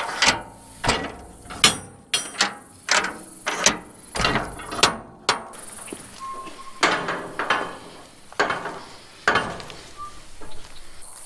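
Steel shipping container doors being unlatched and swung open: a run of irregular metal clanks and knocks from the locking bars and handles, with a short squeak about six seconds in.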